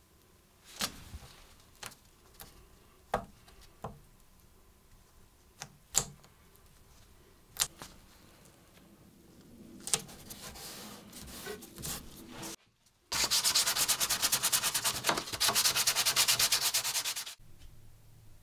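Hand sanding wood with sandpaper: a few light taps and clicks, then about four seconds of loud, rapid back-and-forth rubbing strokes that stop suddenly. This is the sanding of a freshly glued veneer patch.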